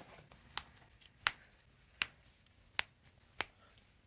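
A run of five faint, sharp clicks, spaced roughly two-thirds of a second apart.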